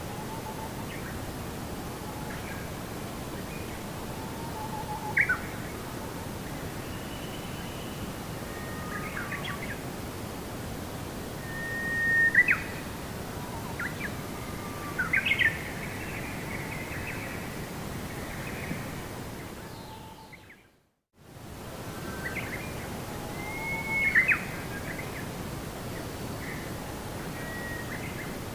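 Birds giving scattered short chirps and whistles over a steady hissing background. About two-thirds of the way through, everything fades out to silence for a moment and fades back in.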